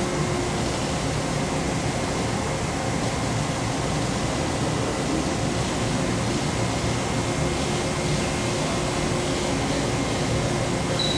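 Steady mechanical hum and whir of a Komo VR510 Fusion 5-axis CNC router running, with a faint steady tone over it.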